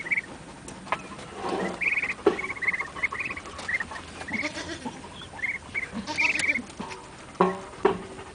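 Muscovy ducklings peeping in clusters of short, high chirps, with a few sharp clicks in between. Two short, lower calls come near the end.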